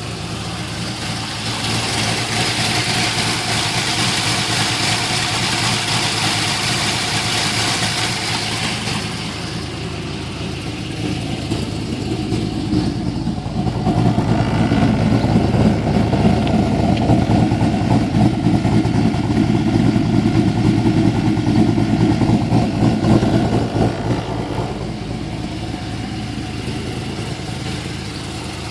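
Holden VY2 Commodore's LS1 V8, fitted with a Kennelly 228/232 custom-grind cam, running through a cat-less X-Force twin 2.5-inch exhaust and idling just after start-up. It gets louder about halfway through and settles back down near the end.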